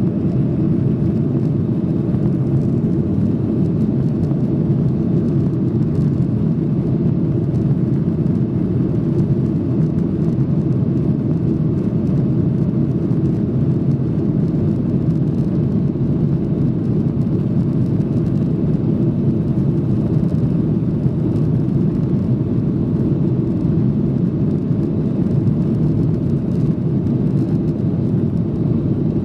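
Steady low cabin rumble of a Boeing 737-800 taxiing, its CFM56-7B engines at low taxi thrust, heard from inside the cabin by the wing.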